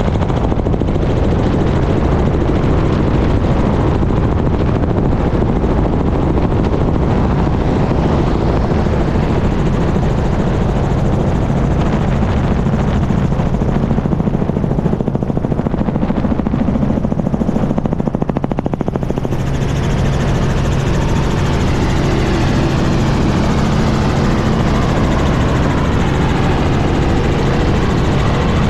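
Helicopter in flight, its rotor and engine running steadily in a loud, continuous rush, picked up by a camera mounted outside the cabin on the landing skid.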